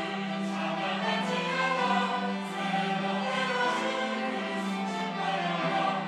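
Church choir singing an anthem, many voices holding chords in several parts that change about once a second.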